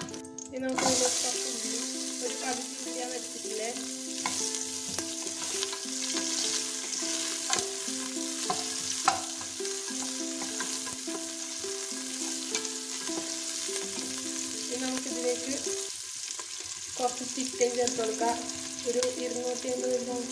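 Chopped onion and whole spices sizzling in hot oil in an aluminium pot while being stirred, the sizzle starting about a second in. A simple background melody plays under it.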